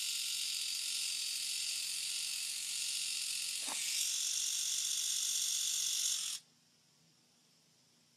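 Small battery-powered eyebrow trimmer buzzing steadily against the brow. There is a brief knock about three and a half seconds in, after which the buzz is a little louder and higher. It stops abruptly about six seconds in.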